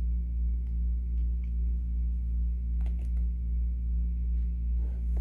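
Steady low hum, with a few faint clicks and taps from flip phones being handled and set down.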